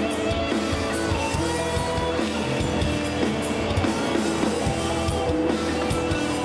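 Background music: guitar over a drum beat.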